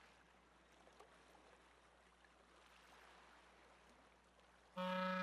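Near silence with a faint watery hiss and a few soft ticks; near the end a loud, steady buzzy tone starts suddenly and holds.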